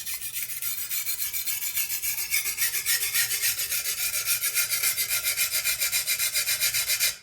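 Steel knife blade being sharpened on a coarse, low-grit whetstone under light pressure: quick, even back-and-forth scraping strokes that stop abruptly near the end.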